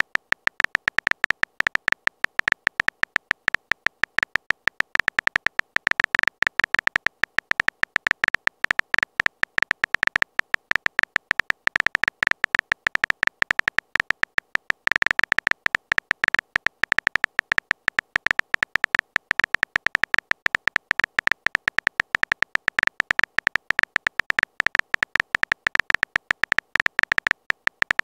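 Texting-app typing sound effect: a rapid run of short, high-pitched key clicks, several a second, one for each letter typed into a message.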